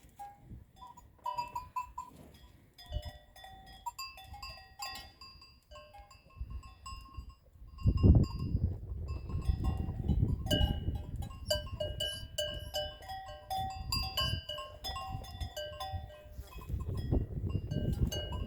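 Bells on grazing cattle clanking irregularly, several ringing pitches overlapping. From about eight seconds in a low rumbling noise joins and stays under the bells.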